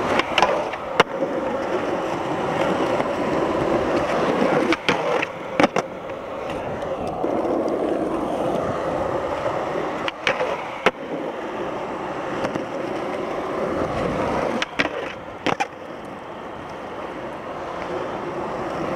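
Skateboard wheels rolling steadily over rough pavement, with a scattering of sharp clacks from the board.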